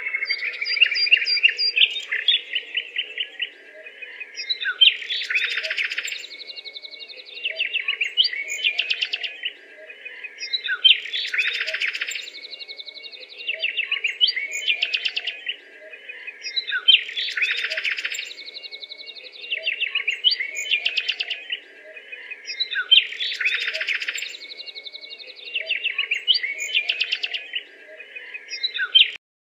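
Songbird singing: varied chirps and fast trills in a phrase that repeats about every six seconds.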